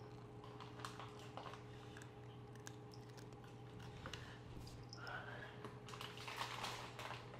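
Cats crunching dry kibble picked off a tile floor: irregular small crisp clicks over a steady low hum. A louder burst of rushing noise comes near the end.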